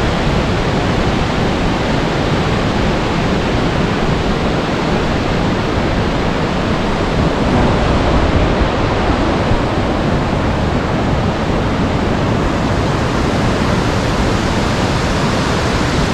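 Fast mountain river rushing over boulders in white-water rapids: a loud, steady roar of water.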